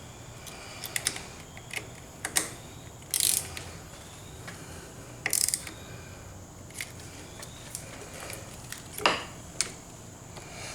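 Irregular clicks and clacks of hand tools and small parts being handled at a motorcycle's handlebar controls, with a few brief rasping scrapes. There is no steady ratchet rhythm.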